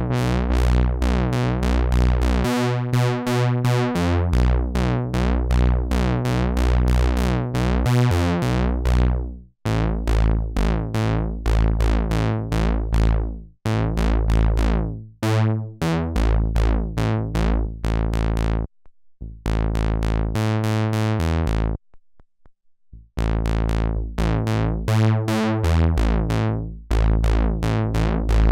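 Behringer Model D analog monosynth playing a fast repeating sequence of short, bass-heavy notes whose brightness fades on each note. The tone shifts as the filter and loudness contour knobs are turned. A long falling filter sweep comes about 9 s in, and the sound drops out briefly around 19 s and again around 22 s.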